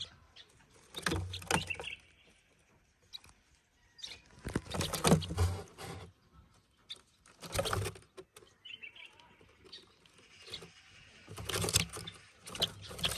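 Intermittent rustling and scraping in several short bouts with quiet gaps between: handling noise while a young sparrow is hand-fed a worm.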